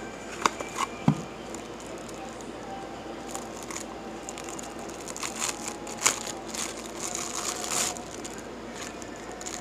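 Cardboard box handled, with a couple of sharp knocks about a second in, then the clear plastic wrap around a small temperature controller crinkling in the hands, repeatedly and loudest in the second half.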